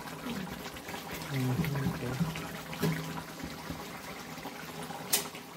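Curry simmering in a kadhai on a gas stove, bubbling steadily. A single sharp click about five seconds in.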